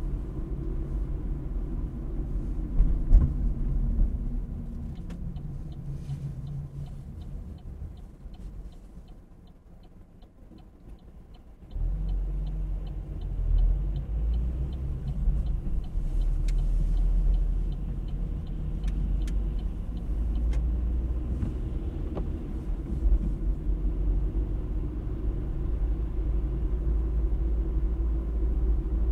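Car on the road: steady low rumble of engine and tyres, which drops away for a few seconds in the middle and then comes back suddenly. A light, even ticking runs through the middle stretch.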